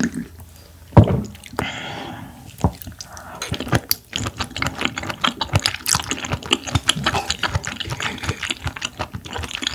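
A sharp knock about a second in, then a dense run of wet, squelchy clicks: raw clam being eaten and chewed close to the microphone.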